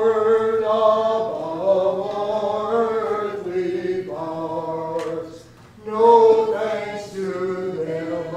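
Congregation singing a hymn without instrumental accompaniment, in long held notes, with a short break for breath about five seconds in before the next phrase.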